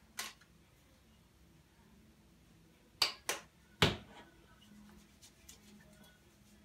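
Sharp clicks and knocks of small hard objects being handled at a sink: one just after the start, then three in quick succession about three to four seconds in, the last the loudest.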